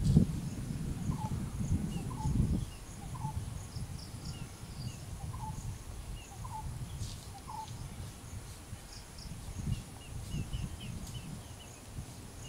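Outdoor ambience with a steady high insect drone and small birds chirping. One short chirp repeats about once a second for the first eight seconds. Under it is a low rumbling noise, strongest in the first two and a half seconds.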